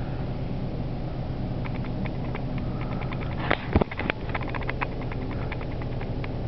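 Slow-moving freight train of autorack cars rolling past, heard from inside a vehicle: a steady low rumble with a run of light clicks and clanks from the cars. A loud knock of camera handling about three and a half seconds in.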